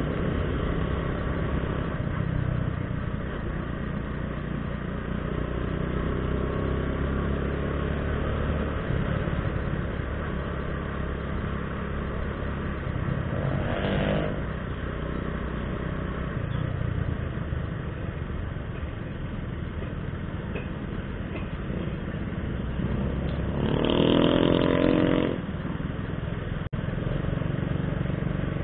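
Small motorcycle engine running steadily under way, with wind and road noise on the action camera's microphone. A short pitched tone sounds about halfway through, and a louder one lasting over a second comes near the end.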